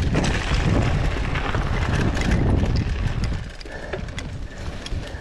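Wind buffeting the microphone as a heavy low rumble, with scattered clicks and rattles, easing off about three and a half seconds in.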